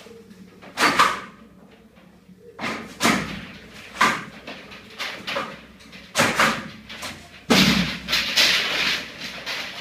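Plastic wrapping crinkling in about six short bursts as a coil of white PEX underfloor-heating pipe is handled and bagged, with dull knocks of the coil against the floor.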